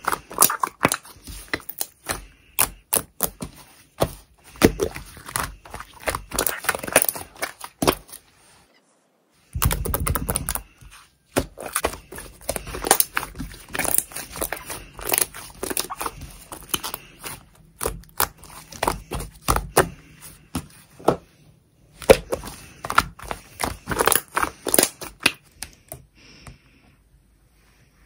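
White slime squeezed and kneaded in the fists, giving off rapid crackling and popping clicks as air is pressed out of it. There is a short pause about a third of the way in, and the sound dies away near the end.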